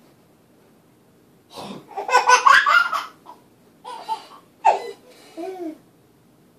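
A sudden loud sneeze about a second and a half in, followed by a few short bursts of laughter.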